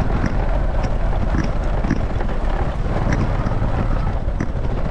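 Small motorbike running along a bumpy grassy track through a rice field, with wind buffeting the microphone and a few short knocks.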